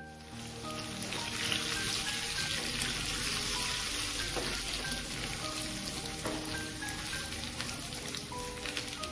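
Mustard seeds, shallots and dried red chillies sizzling and crackling in hot ghee in a small pan, a steady frying hiss with fine pops of the seeds spluttering, as the tempering is stirred. Soft background music plays underneath.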